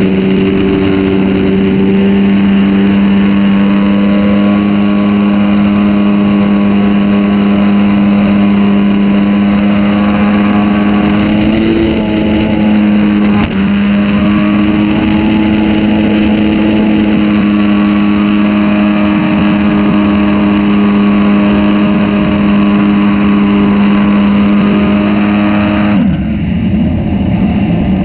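Jet-drive jon boat's motor running steadily underway, one even pitched engine note with a brief wobble partway through. Near the end the steady note breaks up into a rougher sound.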